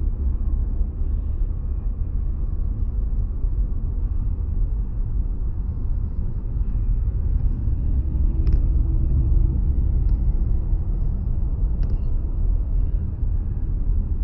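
Steady low rumble of a car driving on a snow-covered road, heard from inside the cabin: tyre and engine noise. Two faint ticks come in the second half.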